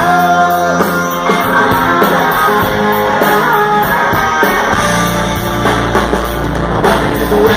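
Live rock band playing an instrumental passage: electric guitars over bass and drum kit, with no singing.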